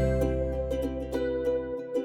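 Background music: light plucked-string tune, ukulele or mandolin-like, over a steady bass note.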